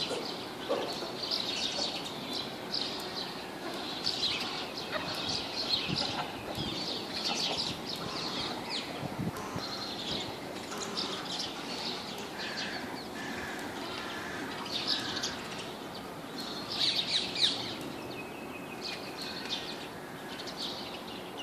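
Small birds chirping in the trees, a steady stream of short, high calls repeating throughout, over faint outdoor background noise.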